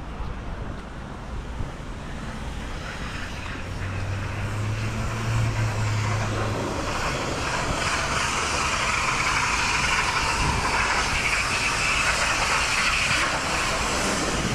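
Propeller plane's engine droning and growing steadily louder through the second half, over low outdoor background noise.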